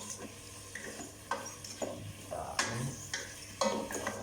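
Chicken being stirred in a frying pan with soy sauce: a utensil scrapes and knocks against the pan a few times over a faint sizzle.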